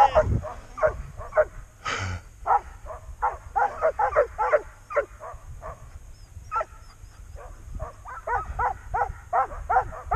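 Sled dogs barking and yipping eagerly in quick, repeated short calls, several a second, with a brief rush of noise about two seconds in.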